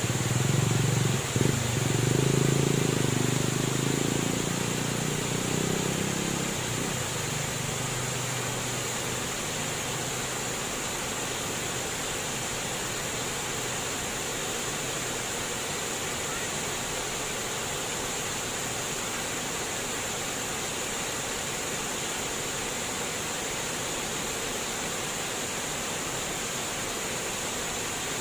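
Flowing water rushing in a steady, even hiss. A louder low rumble lies over it at the start and fades away within the first several seconds.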